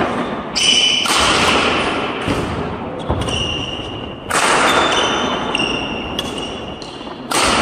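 Badminton rally: rackets striking the shuttlecock, with three loud hits about a second in, just past four seconds and near the end, each ringing on through a large hall, and short high squeaks of sports shoes on the wooden court between them.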